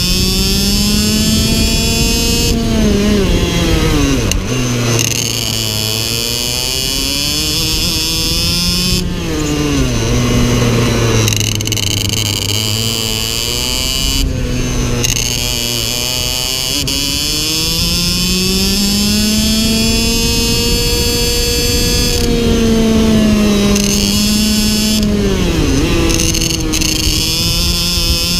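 IAME X30 Super 175 cc two-stroke shifter-kart engine at race pace, revving up through the gears and then dropping sharply in pitch under braking and downshifts, several times over: about four, ten, fourteen and twenty-five seconds in. Between the drops its pitch climbs steadily on the straights.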